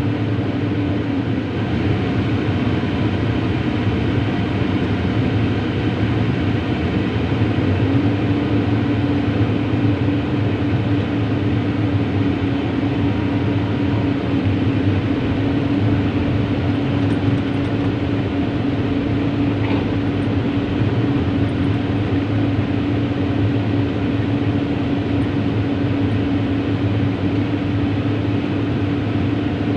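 Diesel engine of heavy construction machinery running steadily under load, a constant drone with a steady hum.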